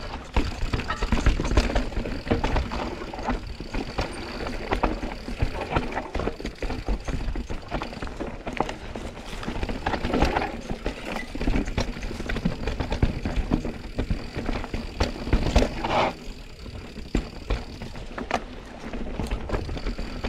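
Mountain bike descending a rough trail: tyres rolling over dirt and rock with a constant, irregular rattle and knocking from the bike over bumps, and wind on the microphone.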